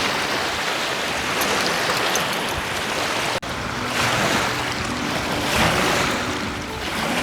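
Wind-driven waves washing on a lake shore, with wind on the microphone. After a sudden cut about halfway, steady low background music comes in under the water sound.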